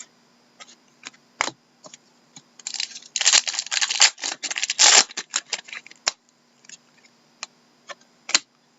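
Hockey trading cards being handled and flipped through by hand: scattered light clicks, with a few seconds of dense rustling and riffling in the middle.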